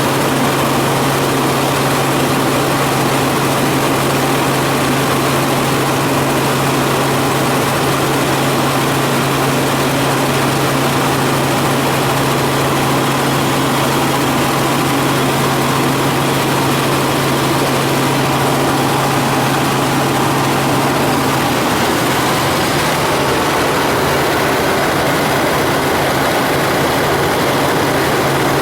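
Helicopter in flight: steady, loud turbine and rotor noise with a constant low hum that weakens about three quarters of the way through.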